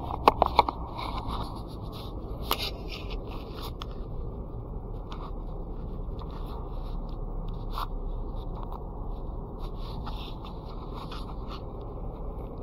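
Steady road and engine rumble of a car driving along a main road, with a few sharp clicks in the first second and another about two and a half seconds in.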